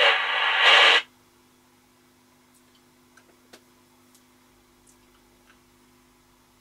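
A burst of FM radio hiss from a Eurosonic ES200 CB handheld's speaker, cutting off sharply about a second in. After that there is a faint steady hum and a few faint ticks.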